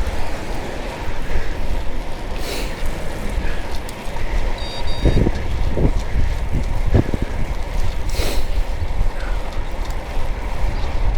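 Steady low rumble and wind buffeting on the microphone, as from a moving vehicle, with a few dull thumps and a short high electronic beep about five seconds in.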